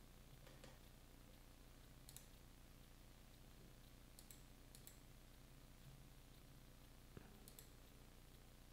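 Faint, scattered button clicks of a Logitech MX Vertical mouse, about five over several seconds, against near silence with a low steady hum.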